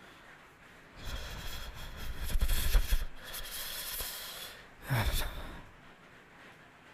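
A man breathing out heavily close to the microphone for a few seconds, then a short low sigh falling in pitch about five seconds in.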